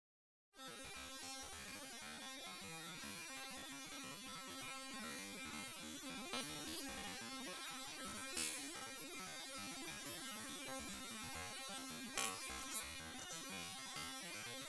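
A steady electrical-sounding hum, with a few faint clicks scattered through it.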